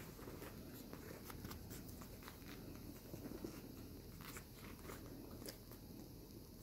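Faint rustling and scattered light clicks from a newborn puppy squirming and being handled on a cloth bedspread.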